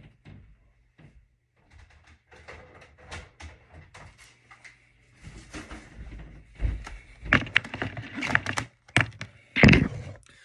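Irregular knocks, clicks and rustles of objects being handled. They are sparse at first, then grow denser and louder in the second half, with a few sharp thuds near the end.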